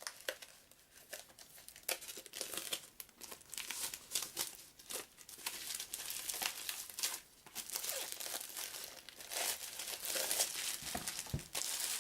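Plastic shrink wrap being torn and crinkled off a boxed game package, a long run of crackling rustles with a light thump near the end.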